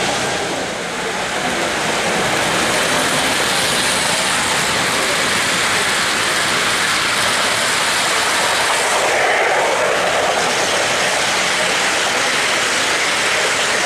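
Three-rail O-gauge model trains running on the track, with cars rolling close past and a steady noise of wheels on the rails.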